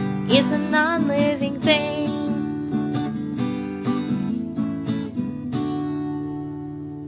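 The closing bars of a children's educational song: strummed acoustic guitar with a short sung phrase at the start, ending on a final chord that rings and fades out.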